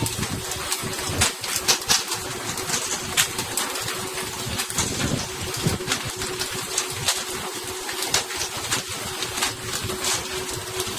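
Boat engine running steadily, with irregular sharp clicks and knocks over it.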